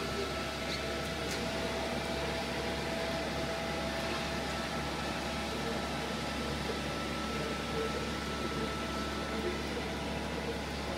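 Shrink wrapping line running steadily: the heat shrink tunnel's fans and conveyor give an even hum with a faint steady whine over it.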